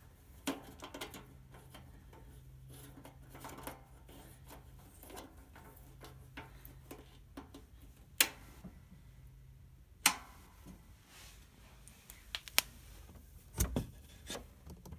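Scattered small clicks and knocks of a heat press's fuse holder and power plug being handled. Two sharp clicks come about eight and ten seconds in, and a dull thump near the end, over a faint low hum that stops about ten seconds in.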